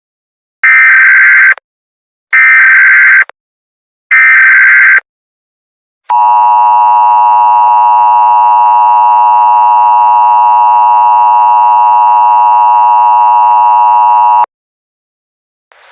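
Emergency Alert System signal: three loud, roughly one-second bursts of digital SAME header data, then a steady, buzzy attention tone held for about eight seconds that cuts off sharply.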